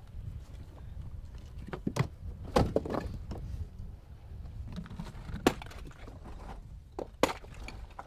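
Basalt stones knocking together as they are handled and set into a dry-stone wall: several sharp clacks, loudest about two and a half and five and a half seconds in, over a low steady rumble.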